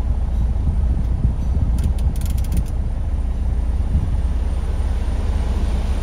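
Ford EcoSport's four-cylinder diesel engine idling steadily with the air conditioning switched on. A few quick clicks come about two seconds in.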